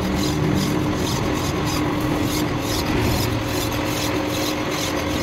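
Rhythmic rasping strokes, about two a second, of a hand tool scraping or filing metal, over a steady machine hum.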